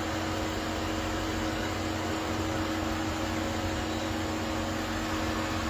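Steady mechanical hum and hiss of a stationary vehicle running, with a constant low drone that does not change.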